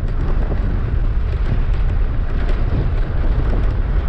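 Wind buffeting the microphone of a rider on an electric bike at speed: a loud, steady low rumble that rises and falls slightly.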